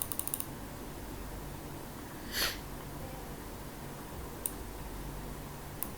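Quiet room tone with a steady low hum, broken by a quick run of small clicks at the start, a short breath or sniff about two and a half seconds in, and a few single faint ticks near the end.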